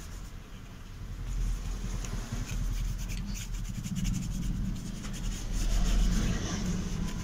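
Cotton cloth rubbing and scrubbing over a TV remote's circuit board in uneven strokes, wiping off moisture deposits that were shorting the buttons.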